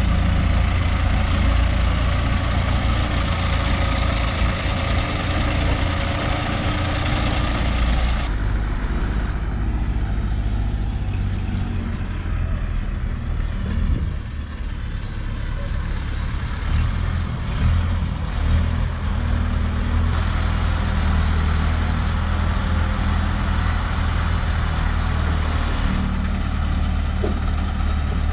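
Heavy diesel vehicle engines running steadily, a Hydra mobile crane's engine among them. The engine sound changes abruptly several times.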